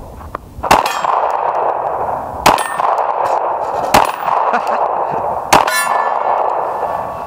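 Four 9mm Glock 26 pistol shots about a second and a half apart, each followed by the clang of a steel target being hit; the last plate keeps ringing with a clear tone.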